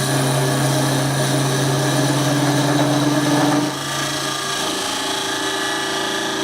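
Wood lathe motor running steadily while a turning tool cuts into the end grain of the spinning cup blank, a scraping cut with a faintly rising tone. About four seconds in the cut stops and the lathe keeps running on its own.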